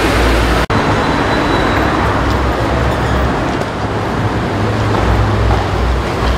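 Steady urban road-traffic noise: the continuous rumble and tyre hiss of motor vehicles on a city street.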